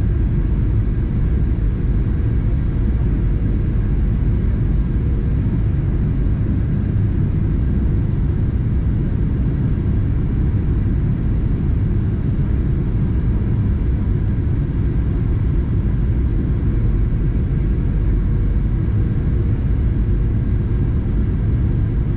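Steady deep rumble of a Boeing 737-800's CFM56-7B turbofan engines and rushing air heard inside the passenger cabin, with faint steady whines above it.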